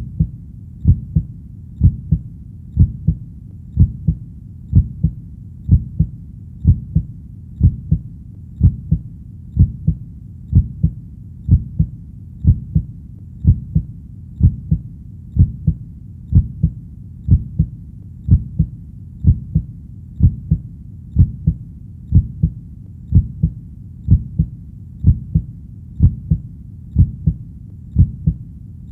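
A human heartbeat beating slowly and evenly at about one beat a second, each beat a low, muffled thump.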